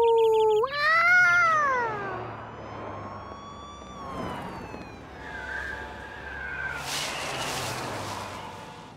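A string of cartoon street sounds. It opens with a short steady tone, then a cat meows, one long call that rises and falls about a second in. Slow gliding tones follow, with a hissing burst around seven seconds in.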